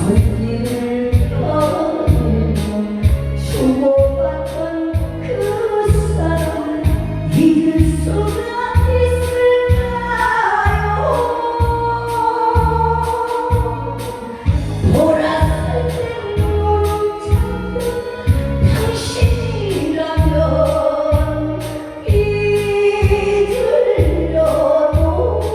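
Korean trot song sung by a woman to a backing track, with a steady bass-drum beat of about one and a half beats a second under the sung melody.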